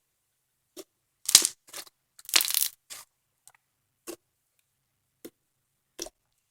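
Slime being squished and pressed by hand: scattered small pops and crackles, with two louder crackling squishes about a second and a half and two and a half seconds in.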